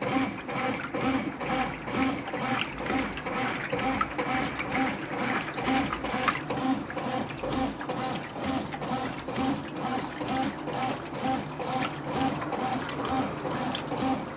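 Brastemp BWQ24A top-loading washing machine agitating a load of clothes in water during the wash stage: water sloshing with a regular back-and-forth rhythm as the agitator turns one way and then the other.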